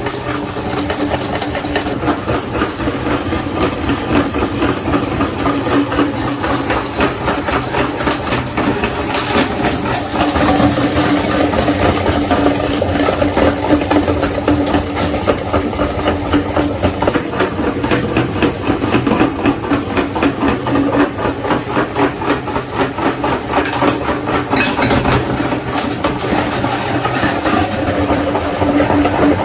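Electric meat grinder running steadily with a constant motor hum and a fast rattle, grinding Magnum ice cream bars.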